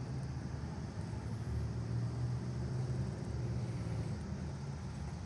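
Diesel engine of a 65 kVA generator running at a steady speed, a low, even sound.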